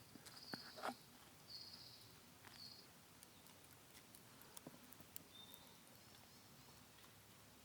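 Near silence with faint, short, high bird calls, several in the first few seconds and one more past the middle, and a few soft clicks.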